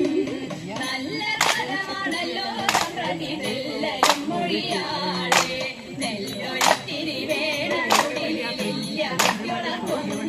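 Women's voices singing a Thiruvathirakkali song, with the dancers clapping their hands in unison about once every 1.3 seconds.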